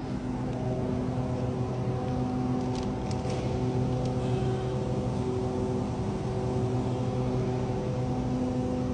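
A steady low machine hum that holds one pitch throughout, with a few faint clicks about three seconds in.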